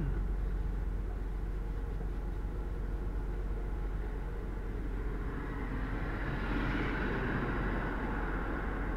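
Car driving on a highway, heard from inside the cabin: a steady low road and engine rumble. About six seconds in, a hiss swells and then fades.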